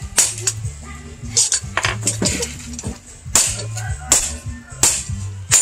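Background music with a steady beat of sharp, jingling percussion strikes about every three-quarters of a second over low bass notes.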